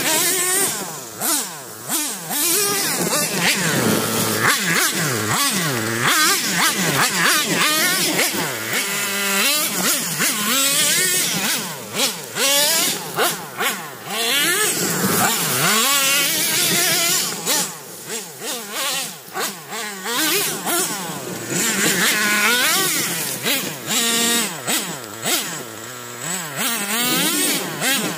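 Traxxas T-Maxx 3.3 nitro RC monster truck's small two-stroke glow engine revving up and down over and over as the truck is driven hard, its high-pitched whine rising and falling constantly.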